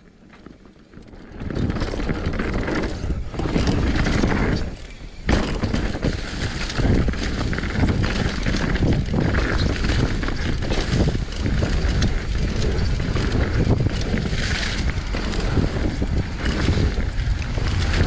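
Mountain bike riding down a dirt and leaf-covered trail: wind rushing over the camera microphone together with the tyres and bike rattling over the ground. It is faint at first and turns loud about a second and a half in, with a brief dip about five seconds in.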